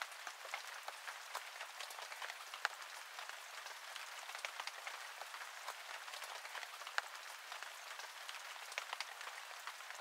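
Faint, steady rain pattering, with scattered sharp drop ticks over a soft hiss.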